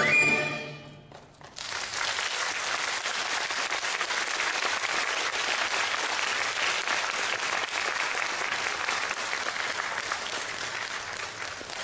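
A Chinese orchestra with a bamboo flute (dizi) soloist ends a concerto on a held note that slides up and stops within the first second. After a short pause, audience applause starts and runs on steadily.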